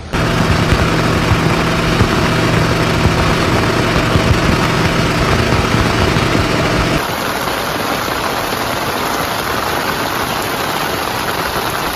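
An engine running steadily under a heavy rush of rain and water. About seven seconds in it cuts off abruptly, leaving only the steady rush of heavy rain.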